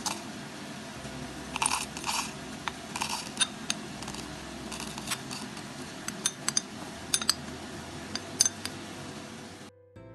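A spoon and small bowls clinking and tapping against a stainless steel mixer-grinder jar as grated coconut and whole spices are tipped in, with short scraping stretches; irregular sharp clinks throughout, cutting off near the end.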